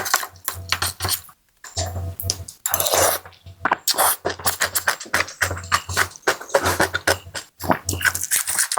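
Close-miked eating of beef noodle soup: quick wet chewing and slurping clicks with clinks of utensils on the bowl, over background music with a steady bass beat. A short break in the eating sounds about a second and a half in.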